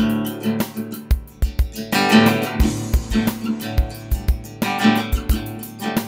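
Intro music led by guitar, with a steady low beat.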